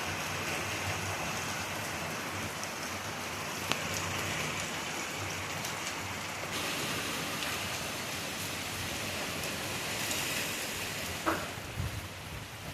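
Heavy, torrential hurricane rain pouring down steadily and drumming on surfaces, with a few brief knocks near the end.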